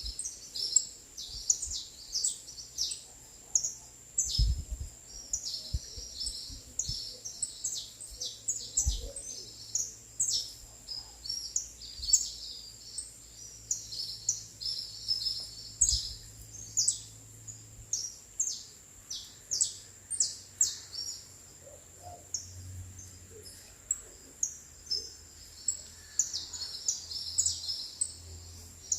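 Small songbirds chirping and tweeting in quick, short, high notes, many calls overlapping, over a thin steady high tone. A few soft low thuds come through, about four, nine and sixteen seconds in.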